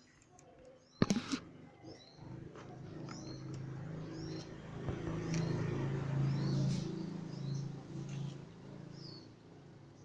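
A sharp clack with a couple of quick repeats about a second in, from hands working at a car battery terminal, then a low wavering hum that builds and fades away. Small birds chirp throughout.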